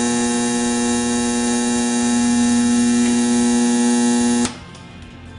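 A Cretors caramelizer's set-point buzzer sounding a loud, steady buzz, signalling that the caramel mix has reached the controller's set temperature. It cuts off suddenly about four and a half seconds in as the heat switch is turned off.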